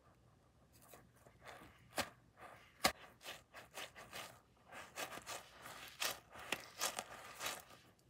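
Fingers stretching and squeezing a small fuzzy-textured squishy teddy bear toy: irregular scratchy rubbing and squishing, with two sharp clicks about two and three seconds in, then a dense run of rubbing sounds.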